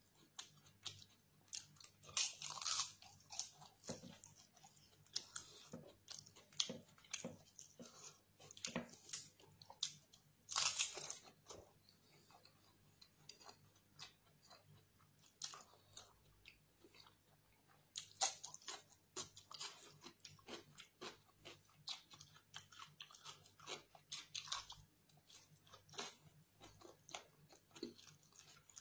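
Chewing and crunching of crisp papadam, in irregular bursts of crackly bites and chews, with quieter chewing of rice and curry eaten by hand.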